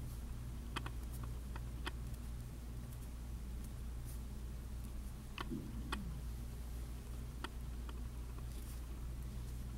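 Faint, scattered small clicks of size 11/0 seed beads being slid off the thread onto a beading needle, over a steady low hum.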